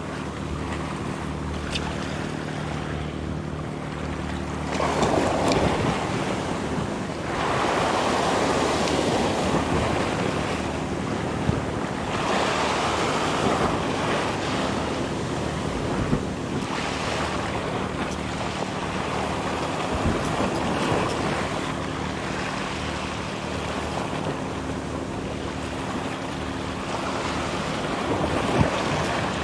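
Small waves breaking and washing over shoreline rocks, surging several times, with wind buffeting the microphone.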